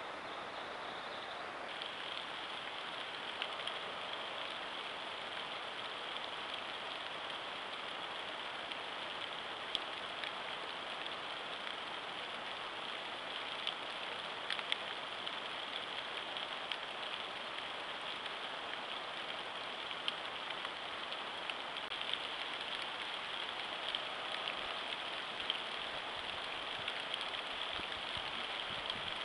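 Steady outdoor hiss picked up by a trail camera's microphone, with a thin high tone joining about two seconds in and scattered faint ticks, much like light rain.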